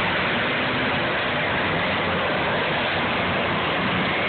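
Several demolition derby cars' engines running together as a steady, dense noise, with no distinct crash in it.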